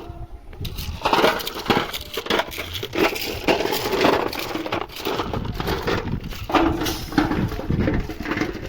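Railway ballast stones crunching and clinking in a dense, irregular run of scrapes and knocks that starts about a second in.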